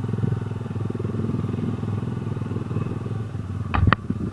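Rusi Classic 250 motorcycle engine running steadily. A little before the end come two sharp knocks close together.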